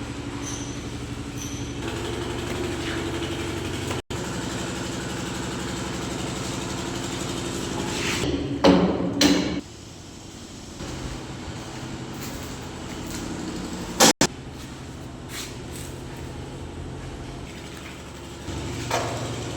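An engine running steadily, with a brief louder burst of noise about nine seconds in.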